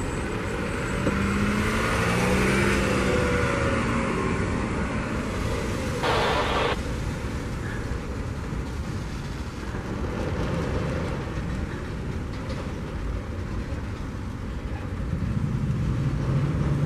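Freight cars rolling past: a steady noise of steel wheels on the rails. A short higher-pitched sound cuts in for under a second about six seconds in.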